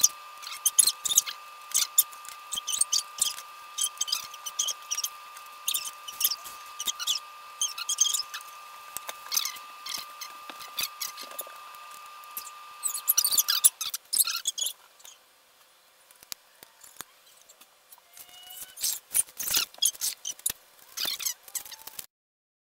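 Small hex screwdriver driving screws into a carbon-fibre multirotor frame: many quick high clicks and little squeaks. A steady high tone runs underneath until about two-thirds of the way through, then stops.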